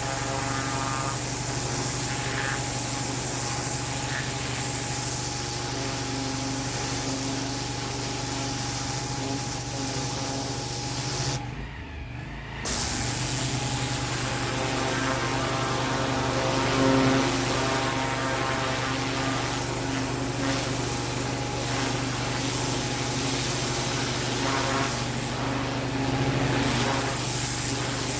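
Pressure washer blasting weeds out of block paving: a steady machine hum under the hiss of the high-pressure water jet. The spray cuts out for about a second near the middle, then resumes.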